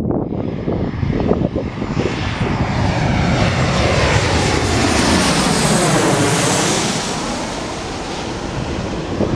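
Boeing 737-800 jet airliner passing low by the runway end, its engines a loud roar with a sweeping whoosh that peaks about six seconds in and then begins to fade. Wind buffets the microphone underneath.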